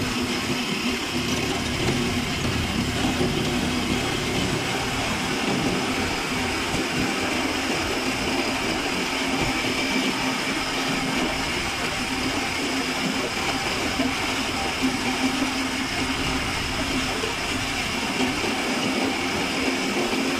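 Steady engine and road noise heard from inside a moving vehicle travelling at an even speed, with a constant low hum under it.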